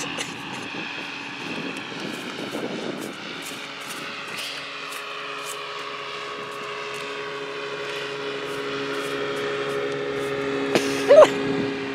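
An engine running with a steady drone, with a couple of short, louder sounds near the end.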